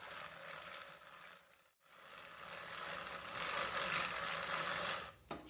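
Bicycle chain being cranked through a clip-on chain-cleaning tool filled with kerosene, a steady whirring rattle of the chain running over the cleaner's brushes. It breaks off briefly just under two seconds in, then carries on.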